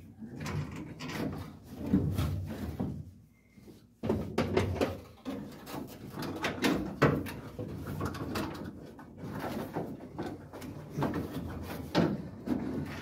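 Irregular knocking, clunking and rattling of hand tools and parts against the truck's metal dash, with a short lull about three seconds in.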